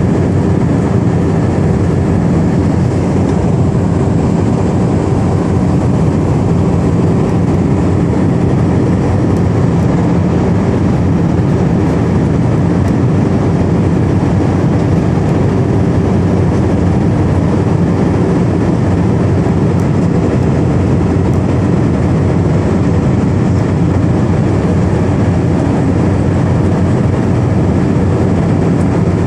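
Steady cabin noise of an Airbus A319 in flight: engine hum mixed with the rush of airflow, heard from a window seat beside the wing-mounted engine, with a few faint steady tones inside the drone.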